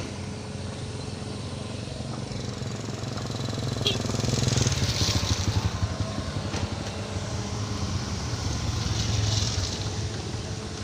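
Excavator's diesel engine running, swelling louder twice under load, with a hiss at each swell and a single sharp click about four seconds in.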